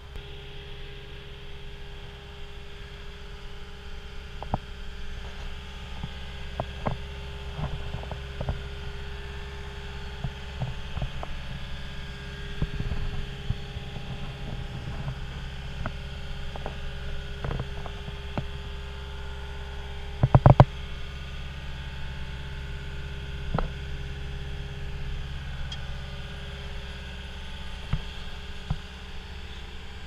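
A steady low mechanical hum with scattered knocks and clicks, and a quick cluster of loud knocks about twenty seconds in.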